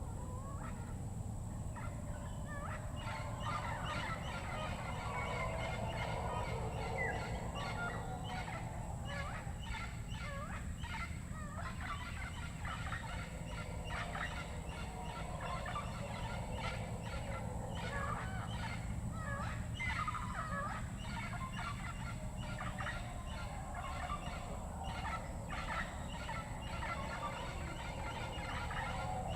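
Panamanian rainforest chorus: many overlapping animal calls and chatters, dense and continuous, over a steady high-pitched whine and a low background rumble.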